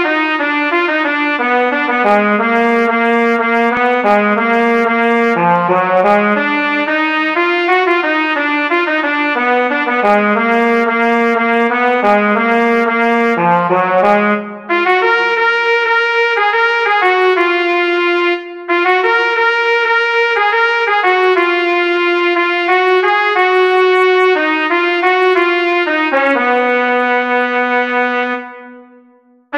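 Solo B♭ trumpet melody played back by music-notation software, note by note in a lively 6/8 rhythm, with two short rests about halfway and a final long low note that fades away near the end.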